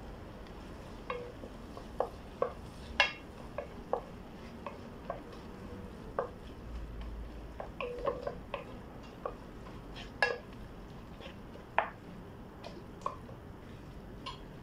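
Wooden spoon stirring onions in a pot, knocking and scraping against the pot's sides and bottom at an irregular pace, some knocks with a brief ring.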